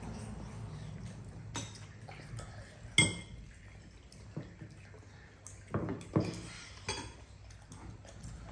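Metal spoons clinking and scraping against bowls as children eat, in irregular knocks, with one louder ringing clink about three seconds in.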